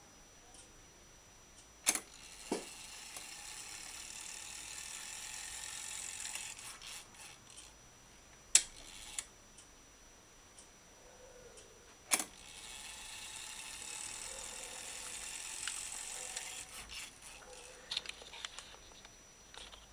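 Brass clock movement tried by hand: a sharp click sets its gear train running with a fast whirring rattle for about five seconds before it stops. After a single loud click in the quiet, another click sets it whirring again for about four seconds, with a few light clicks near the end.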